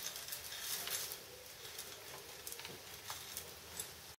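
Faint pattering and scattered light clicks of peas and fried rice being stirred in a frying pan.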